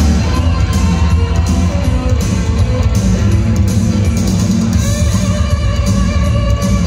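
Loud music with a heavy, steady bass beat and guitar, played without a break.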